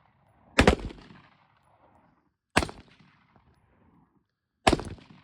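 Three single gunshots at a firing range, about two seconds apart, each dying away in a short echo.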